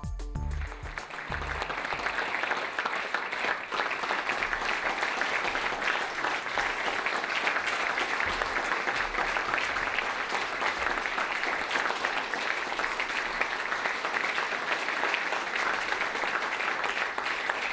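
Sustained applause from a large audience clapping steadily, as the last notes of music fade out in the first moment.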